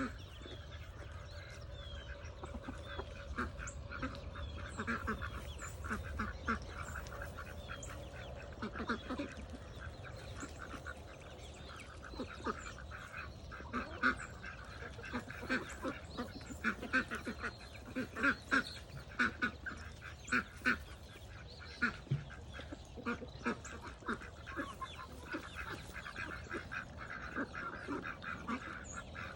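A flock of farmyard poultry calling, with many short repeated calls overlapping, busiest in the middle stretch, over a steady low rumble.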